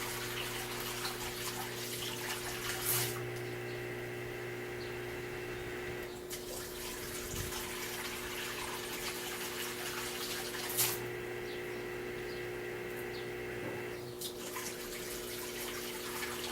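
Brastemp washing machine running its rinse cycle: a steady motor or pump hum under flowing, splashing water, with two sharp knocks about three seconds in and near eleven seconds.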